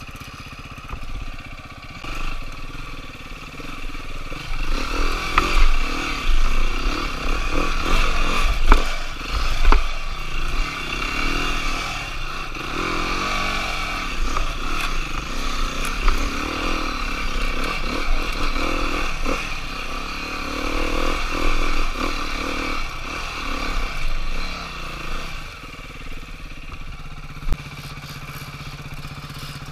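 Dirt bike engine revving up and down as it is ridden over rough trail, with clattering knocks from the bike and the terrain. Over the last few seconds it settles to a steadier, quieter run.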